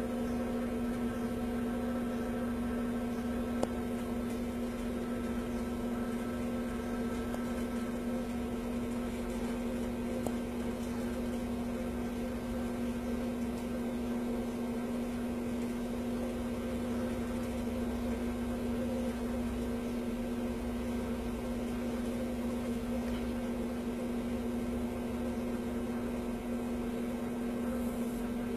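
Steady electrical hum: one constant low tone with fainter tones above it over an even hiss, unchanging throughout. There is no sound of the explosion or the fire.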